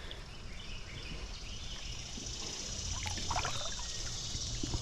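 Creek water running steadily, a hiss that fills in from about a second in, over a low rumble, with a few faint short sounds about three seconds in.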